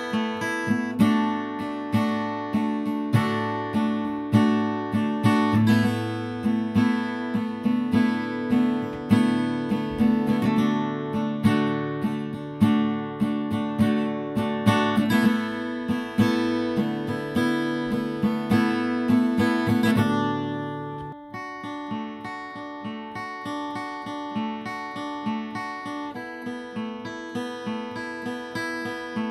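Background music of acoustic guitar, plucked and strummed notes in a steady flowing pattern, dropping to a softer passage about two-thirds of the way through.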